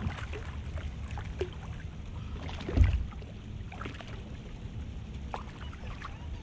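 Hooked smallmouth bass thrashing and splashing at the surface beside a kayak: scattered short splashes over a steady low rumble, with one loud thump about three seconds in.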